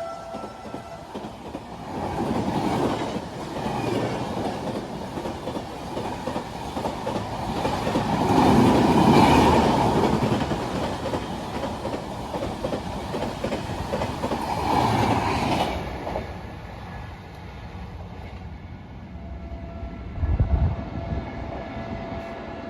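Indian Railways express train running through at full speed: coaches rumbling and wheels clattering rapidly over the rail joints. It is loudest about nine seconds in, then fades after about sixteen seconds as the train draws away.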